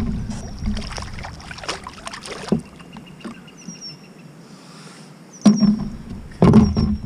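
Knocks and water sounds around a fishing kayak, with two loud bursts about five and a half and six and a half seconds in.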